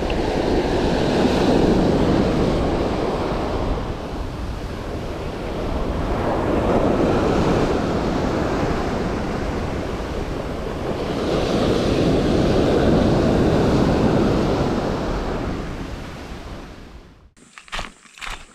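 Surf breaking and washing up the beach, swelling and fading in about three surges, with wind rumbling on the microphone. Near the end it cuts off suddenly and gives way to a few footsteps on dry leaf litter.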